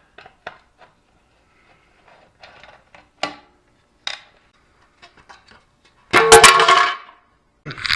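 Scattered small metal clicks and clinks of tools and parts being handled, then about six seconds in a loud, ringing metallic clang that lasts under a second.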